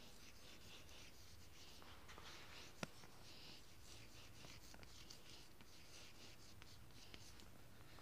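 Chalk writing on a blackboard: faint, intermittent scratching strokes, with one sharper tap of the chalk a little under three seconds in.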